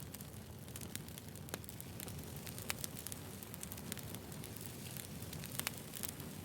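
Wood fire burning, with a steady low rumble and irregular sharp crackles and pops from the burning wood.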